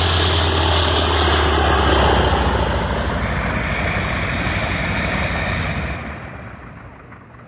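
AT-6 Texan's Pratt & Whitney R-1340 nine-cylinder radial engine idling, then shut down: the engine note weakens a couple of seconds in as the propeller winds down, and the sound falls away sharply about six seconds in.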